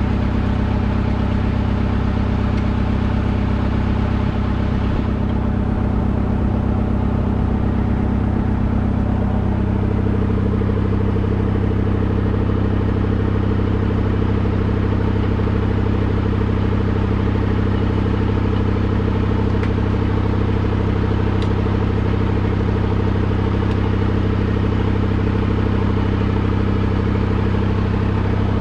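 An engine running steadily at idle, an even low hum that holds its pitch; about ten seconds in its tone shifts slightly.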